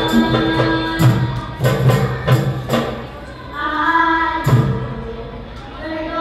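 A schoolgirls' nasyid group singing in harmony into microphones, backed by steady hand-percussion beats for the first three seconds. About halfway in the voices hold a chord, a single drum beat comes a second later, it drops quieter briefly, and the singing starts again near the end.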